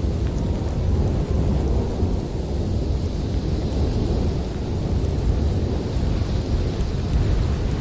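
Snowstorm winds blowing against a cottage: a steady deep rumble that swells and eases in gusts.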